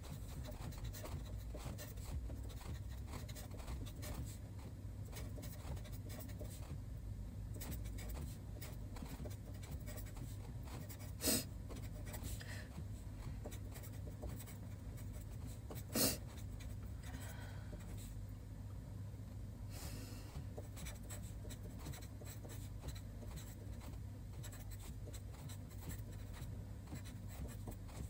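Felt-tip marker pen writing Chinese characters on paper: a steady run of small scratches and ticks from the pen strokes, with two louder sharp taps, about eleven seconds in and again about five seconds later, over a steady low hum.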